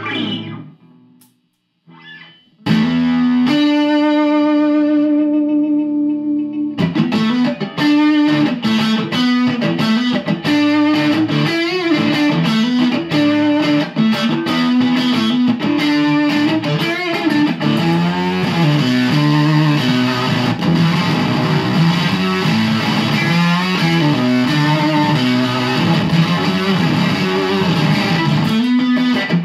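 Electric guitar played through a tube amp head into the Salvage Custom 2x10 cabinet with Eminence Delta Demon and Ragin Cajun speakers. A note dies away and there is a brief gap. A few plucked notes follow, then a chord rings for a few seconds, and from about seven seconds in comes continuous riffing with many quick notes.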